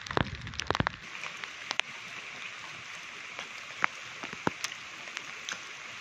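Rain falling with a steady hiss, and sharp taps of drops landing close to the microphone: a dense cluster in the first second, then a few single taps.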